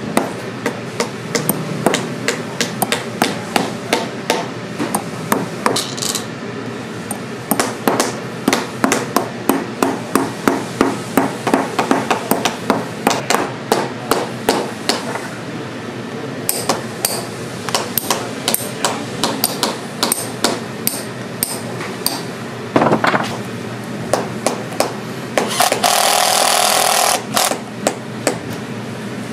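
Hammer striking a rubber lug heel onto a boot's stacked leather heel, many quick taps a second in runs. Near the end a cordless drill runs steadily for a couple of seconds, driving into the heel.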